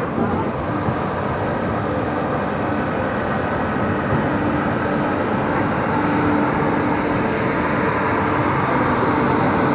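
Express passenger train running along the track, a steady rumble of wheels on rails heard from on board.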